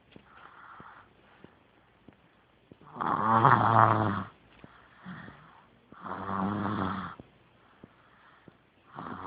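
Snoring: a loud snore about three seconds in and another about six seconds in, each lasting about a second, with softer breaths between and a third snore starting near the end.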